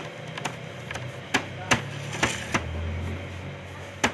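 Irregular sharp knocks as balls of monay dough and the baker's hands strike the worktable while the dough is rounded by hand, about eight knocks in four seconds, over a faint steady hum.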